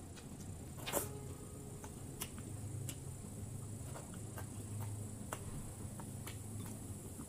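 Close-up eating sounds: a person chewing a mouthful of food, with irregular sharp crunchy clicks and mouth sounds, the loudest about a second in, over a low steady hum.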